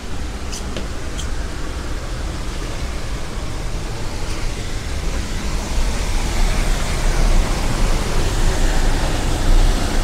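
Steady roar of the Düden River's water rushing over the Upper Düden waterfall, with a deep rumble, growing louder over the last few seconds.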